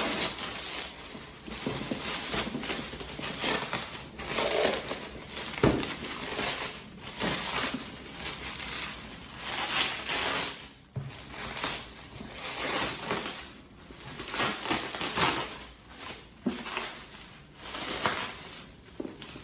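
Packing material being handled and crumpled by hand, an irregular crinkling and rustling that rises and falls throughout.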